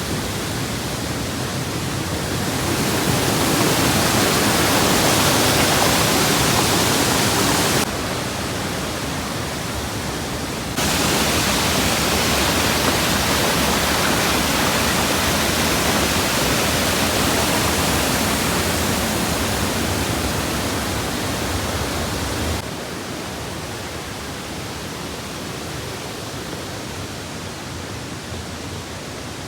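Waterfall's rushing water, a steady, dense hiss. It drops suddenly in loudness about eight seconds in, jumps back up about three seconds later, and drops again about two-thirds of the way through.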